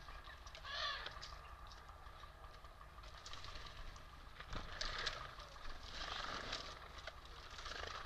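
Small sounds of birds feeding at a wicker basket of nuts and seed: a Eurasian jay, then a great tit. There are scattered light taps and rustles, with a short noisy burst about a second in.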